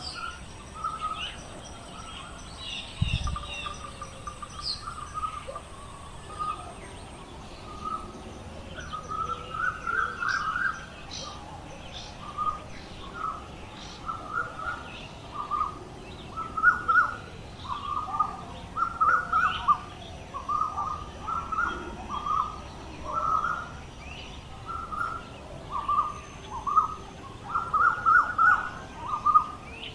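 Birds calling: a stream of short repeated calls, coming faster and louder in the second half, over fainter higher chirps. A single low thump about three seconds in.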